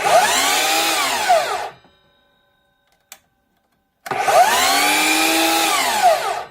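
DeWalt FlexVolt 60-volt brushless 12-inch sliding miter saw run twice, about two seconds each time. On each run the blade spins up with the saw's soft start, whines steadily, and winds down quickly once the trigger is released.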